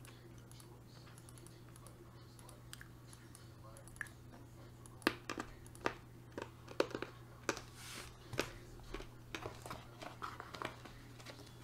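Scattered clicks and taps on a laptop keyboard and touchpad, mostly from about five seconds in, over a steady low hum.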